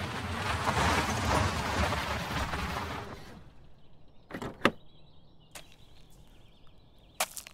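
A Citroën car settling to a stop on gravel, its noise fading away over the first few seconds. Then the car door unlatches and opens with sharp clicks about four and a half seconds in, followed by a few more clicks near the end.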